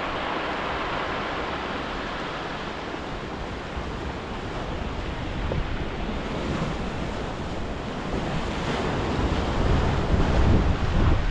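Sea surf washing in under a strong storm wind, with gusts buffeting the microphone in low rumbles that grow heavier near the end.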